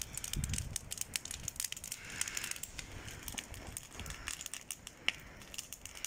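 Campfire of piled branches burning hard, crackling steadily with many sharp pops and snaps.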